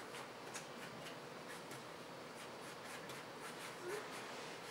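Faint scratching of a pen drawing on paper, in short irregular strokes, with a brief soft rising sound near the end.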